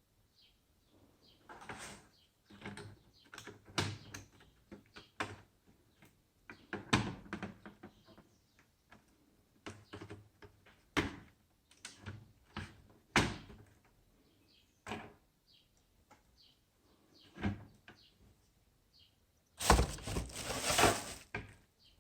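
Irregular clicks and knocks, a few to several seconds apart, then a louder rustling, scraping noise lasting about a second and a half near the end.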